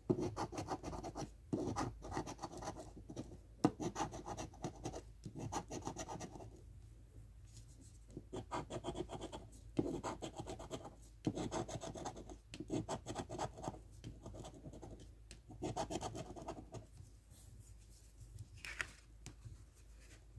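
A round coin-like token's edge scraping the latex coating off a paper lottery scratch-off ticket, in runs of quick back-and-forth strokes with short pauses between them. The scratching stops a few seconds before the end.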